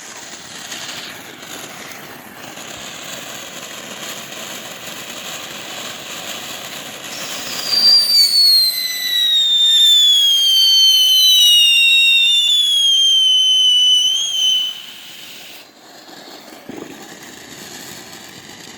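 Backyard firework hissing as it burns, then from about eight seconds in a loud whistle that slowly falls in pitch for about seven seconds before cutting off.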